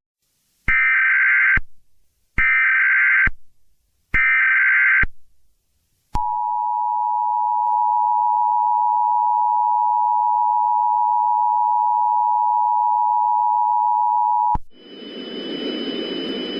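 Emergency Alert System broadcast tones: three screechy digital SAME header bursts about a second long with short gaps between, then the two-tone attention signal (853 and 960 Hz) held steady for about eight seconds before cutting off suddenly. A hissing noise takes over near the end.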